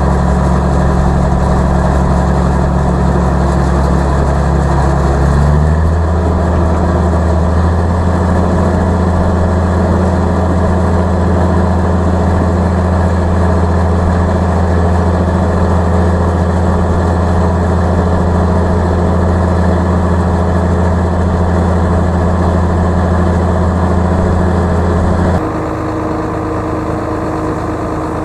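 Tractor engine running steadily. Its pitch steps up slightly about five seconds in, then drops and gets a little quieter near the end as the throttle is eased.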